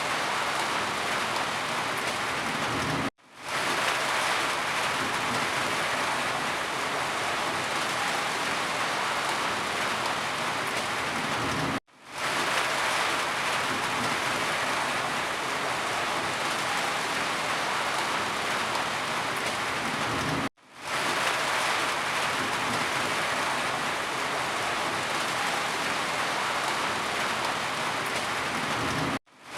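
Steady rain falling on a surface. Four times, about every nine seconds, the sound cuts out abruptly for a moment and then fades back in.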